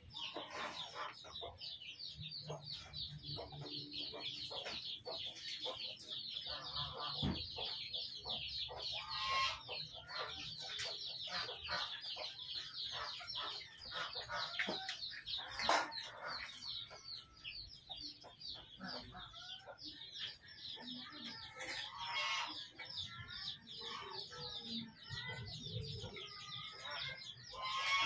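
Birds calling: a dense, continuous run of quick, high, falling chirps, with lower wavering calls joining in during the last third. A few sharp knocks come through, the loudest about halfway through.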